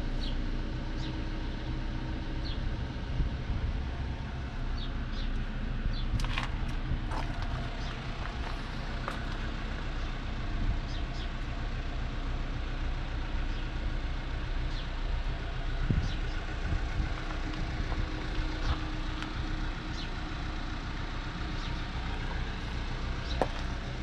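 Valtra T174's 7.4-litre six-cylinder diesel idling steadily, with a few faint clicks over it.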